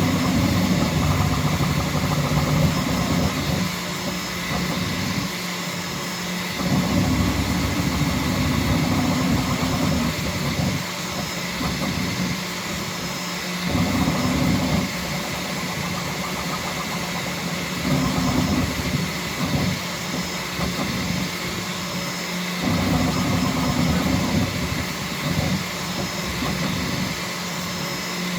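Bambu Lab X1C 3D printer running a print at high speed: its motors hum and whir over a steady fan hiss. The hum swells and drops every few seconds as the movements change.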